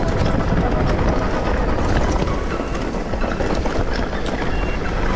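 Mountain bike riding over rough, dry ground: heavy wind rumble on the microphone, tyres on rock and dirt, and steady knocking and rattling from the bike.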